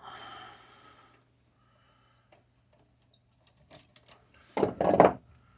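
Hand tools working a stiff copper ground wire: scraping and small metal clicks as pliers bend it, then a short, louder double clatter about four and a half seconds in. A faint steady hum runs underneath.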